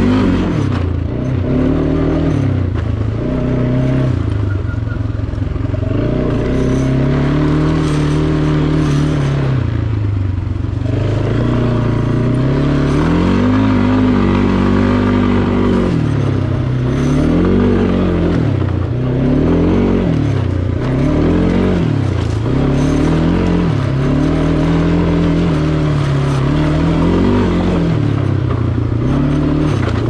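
Kawasaki four-wheeler's engine running under way, its pitch climbing and dropping again and again as the rider opens and eases the throttle, the swells coming about every two seconds in the second half.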